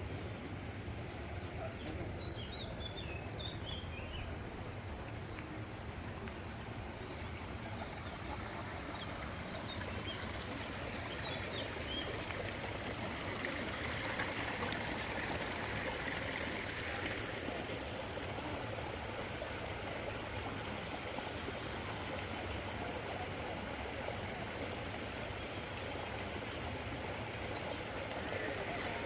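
Steady rush of running water, like a stream or water feature, with a few faint high chirps about two to four seconds in.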